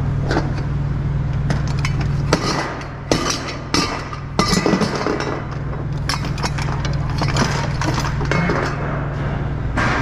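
Steel transport chains clinking and clanking against each other and the hooks as they are handled and hooked through the eye of a steel coil, in irregular sharp metallic knocks. A steady low hum runs underneath, dropping out for a couple of seconds near the middle.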